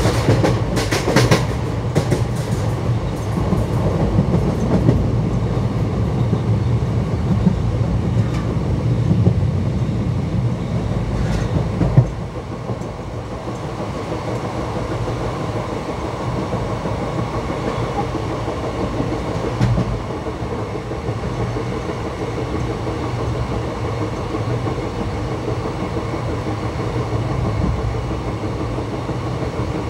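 Track sound of an ICF passenger coach running, heard from aboard the train: a steady rumble of wheels on rail with clickety-clack, and a cluster of sharp clicks in the first few seconds. About twelve seconds in the noise drops suddenly and runs on quieter and steady.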